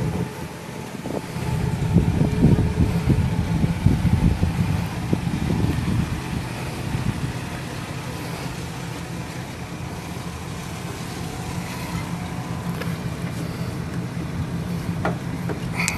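2008 GMC Sierra 1500's fuel-injected 4.3-liter V6 engine running, a steady low drone that is louder and more uneven in the first half of the stretch.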